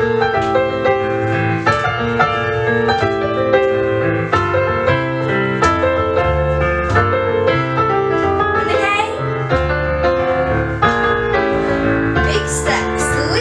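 Recorded piano music for a children's dance class: chords and notes struck in a steady rhythm over a repeating bass line.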